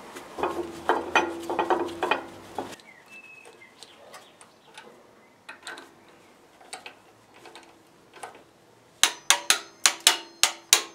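Metal clinks and scattered clicks as a steel alternator bracket is fitted to the engine. About nine seconds in, a hand ratchet starts turning one of its bolts, a quick even run of sharp clicks, about five a second.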